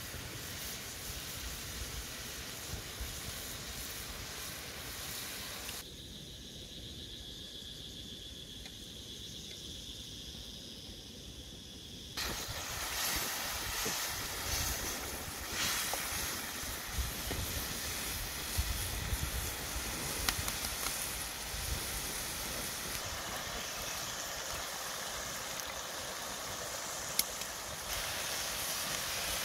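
Shredded cabbage sizzling in a wok over a wood fire as it is stirred with a spatula, with a sharp tap near the end as an egg is cracked on the pan.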